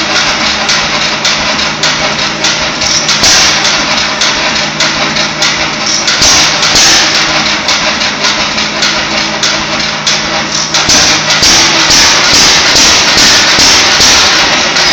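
Antique hopper-cooled stationary gas engine running, firing in a rapid, steady string of loud knocks.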